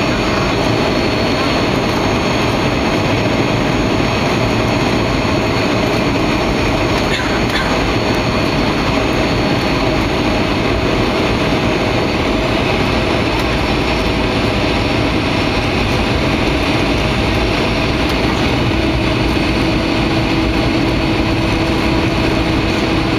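Steady engine drone and rushing airflow inside the cabin of a Boeing 737-800 descending on approach to land. A low steady hum sets in about eighteen seconds in.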